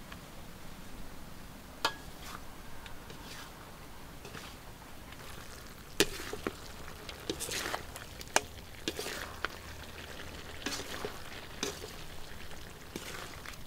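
Duck pieces frying in a metal wok over a wood fire, with a steady sizzle. From about six seconds in, a metal spatula stirs the meat, scraping and clacking irregularly against the pan.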